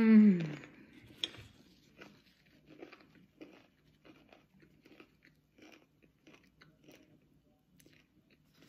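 A person bites into and chews a crisp fried plantain cup filled with ground beef and cabbage: a sharp crunch about a second in, then faint, irregular crunching while chewing. It opens on the tail of a woman's falling vocal exclamation.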